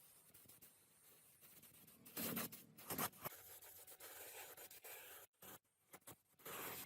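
Faint scraping and rubbing strokes from hand work on floor jack parts, louder in short stretches about two seconds in and again near the end.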